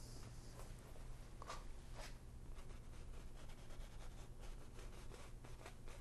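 Faint, short scratchy strokes of a small fan brush dabbed on canvas, a few seconds apart, over a low steady hum.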